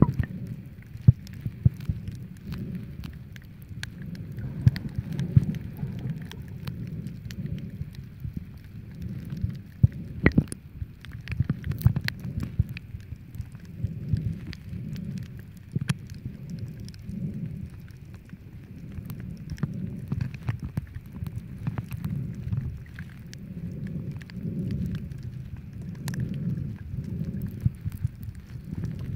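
Muffled underwater noise picked up by a camera held below the surface while snorkeling. A low rumble of water moving past the camera swells and fades every few seconds, and scattered sharp clicks and crackles run through it.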